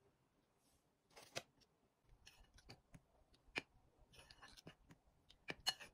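Metal spoon stirring flour and cornflour in a ceramic bowl: faint scraping rustles through the powder, with a few sharp clinks of the spoon against the bowl.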